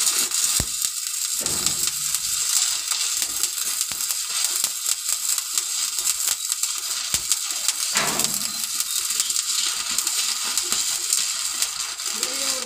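Electric arc welding: the arc's steady crackling sizzle, full of fine pops, cutting off near the end as the arc is broken.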